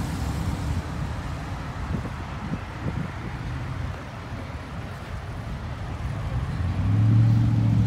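Cars driving past on the road, a steady mix of engines and tyres. About seven seconds in, a louder engine comes in close with a low drone, its pitch slowly rising.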